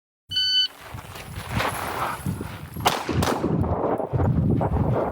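Shot timer's short electronic beep, followed by rustling and footfall noise as the shooter moves, then two 9mm Glock 19 pistol shots about 0.4 s apart near the middle.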